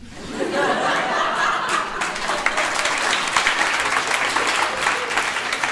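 Live audience laughing and applauding, the clapping thickening from about two seconds in.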